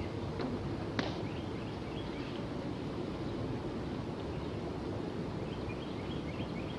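Steady outdoor ambient noise with faint short bird chirps in two brief clusters and a single sharp click about a second in.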